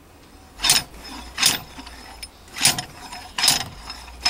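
Homemade slide hammer, an old injector line welded on as a puller, jerked out against its stop: four sharp metallic clanks about a second apart as it pulls at the number 3 diesel injector of a Volkswagen TDI engine.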